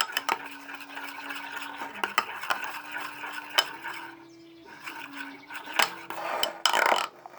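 A small spoon stirring a soapy mix of shampoo, soap and water in a plastic tub, with irregular scrapes and clicks against the sides. A faint steady hum runs underneath.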